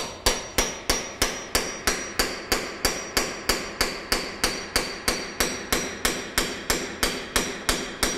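Hammer blows on steel, struck steadily at about three and a half a second, each with a high metallic ring, as a stepper motor is knocked loose from a 1980s KUKA industrial robot.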